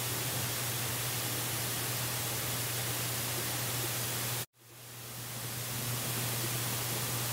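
Steady hiss with a constant low hum from a wildlife nest camera's live-stream microphone. It cuts out abruptly about four and a half seconds in and fades back up over a second or two.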